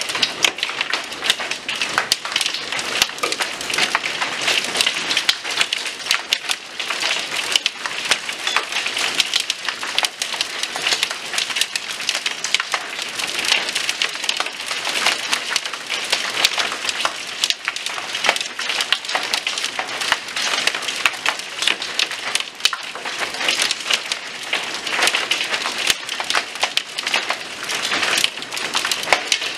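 Small hail and rain pelting wooden deck boards: a dense, steady clatter of countless tiny impacts.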